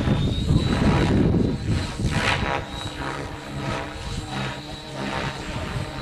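Align T-Rex 700E electric RC helicopter in flight: its main rotor blades whoosh in surges over a steady hum and a steady high whine. It is loudest in the first two seconds, with one more whoosh a little after two seconds, then quieter.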